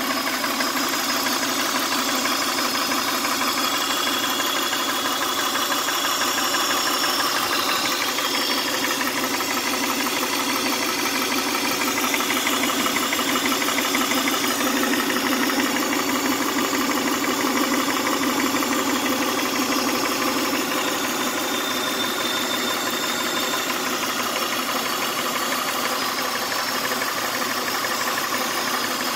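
1999 Honda Odyssey's 3.5-litre V6 idling steadily, with a steady hiss over the running that the owner takes for a vacuum leak under the intake manifold.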